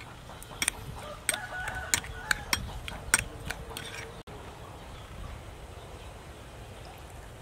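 Metal spoon clinking against a ceramic bowl while stirring chili dipping sauce: a quick, uneven run of sharp clinks over about three seconds, stopping about four seconds in.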